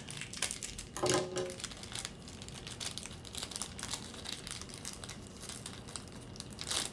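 A small cardboard mystery box and the wrapped pins inside being opened by hand: a dense run of small crinkles and tearing, with a louder burst near the end.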